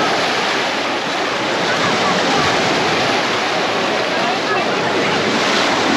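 Busy beach ambience: many people chattering at once, with no single voice standing out, over the steady wash of waves on the shore.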